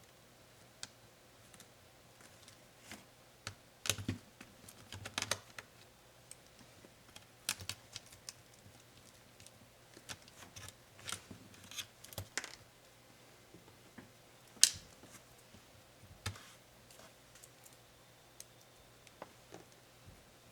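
Irregular small clicks and taps of a laptop's plastic and metal parts and hand tools being handled during disassembly, with clusters of quick clicks and one sharper click about two-thirds of the way in.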